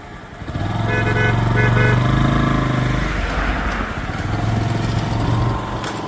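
Vehicle engine running close by, swelling up about half a second in and then holding steady, with two short steady beeps about a second in.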